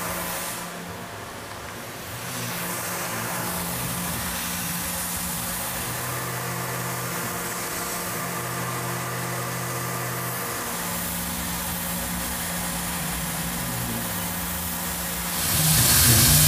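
Tormach CNC mill running steadily, its spindle humming under a steady hiss, while a 3/32 in end mill cuts a shallow groove 5 thou deep in aluminium. The sound grows louder near the end.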